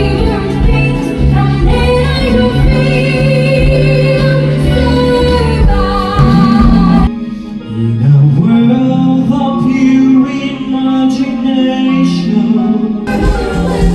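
Live stage-show music: singers, a female voice among them, over full band or backing-track accompaniment. The bass drops out about seven seconds in and comes back near the end.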